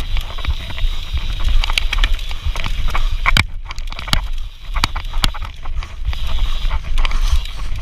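Mountain bike descending a rough dirt trail: a steady low rumble of wind buffeting the camera microphone, with the bike rattling and clattering over bumps in many sharp clicks. The loudest knock comes about three and a half seconds in, followed by a short quieter stretch.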